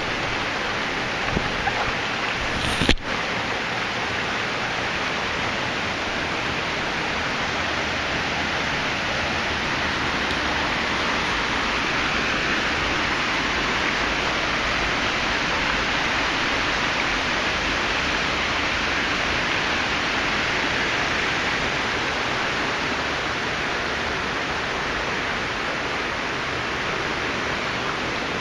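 Steady rush of a small waterfall of typhoon run-off water, with a single sharp click about three seconds in.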